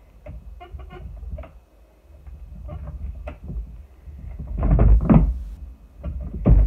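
Scattered clicks and knocks of tools and hard objects being handled, with a louder clatter of clunks about five seconds in and a sharp knock near the end.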